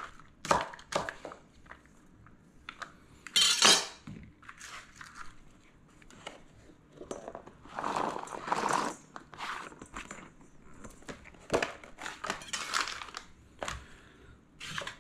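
Kitchen knife knocking on a plastic cutting board as a bell pepper is chopped. A few louder rasping sweeps come as the chopped pepper is scraped off the board into a stainless steel bowl, the biggest about three and a half seconds in and around eight seconds.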